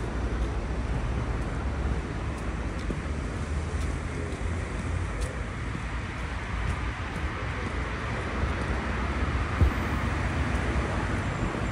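Steady city street traffic noise with a low rumble, and one short knock about nine and a half seconds in.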